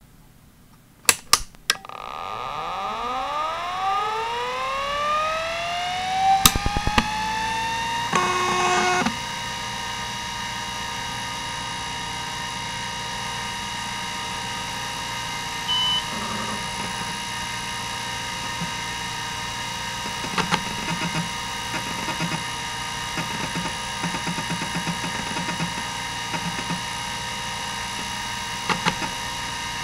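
Hitachi DK505-2 26 MB stepper-motor hard drive (1989) powering up: a few clicks, then the spindle's whine rising in pitch over several seconds as the platters spin up to speed, and a loud buzz for about a second. It then settles into a steady high whine, with one short high beep midway and bursts of quick stepper-motor seek ticking in the last ten seconds as MS-DOS 5.00 loads from it.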